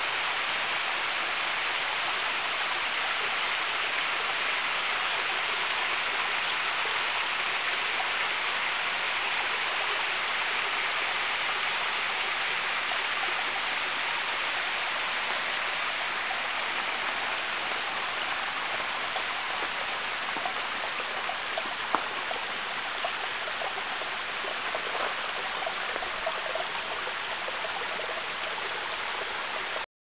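Small waterfall splashing down a rock face, a steady hiss of falling water, with a single sharp click about two-thirds of the way through.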